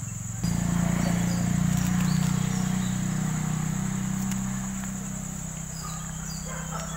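Crickets trilling steadily at a high pitch, under a louder, low, steady hum that comes in suddenly about half a second in and runs on to the end.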